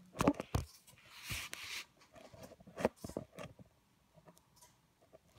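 Akita Inu puppy chewing a piece of apple, crunching it in a run of short crackly bites over the first few seconds, then quieter.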